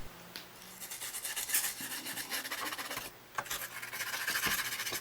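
Scratchy rubbing and rasping from hand work on the opened receiver, with a short pause a little after three seconds in.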